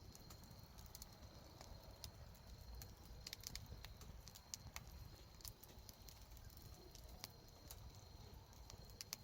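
Campfire wood crackling: scattered sharp pops and clicks at irregular intervals, over a steady low rumble.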